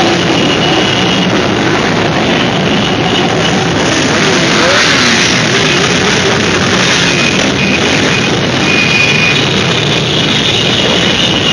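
Loud rock music over the steady noise of many motorcycles riding past.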